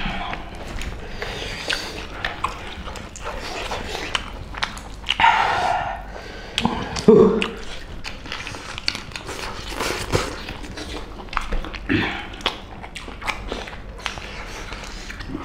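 Close eating sounds: chewing, lip smacks and gnawing on curried mutton and pork bones eaten by hand, with many small wet clicks. Two short, louder vocal sounds stand out, one about five seconds in and a lower, louder one about seven seconds in.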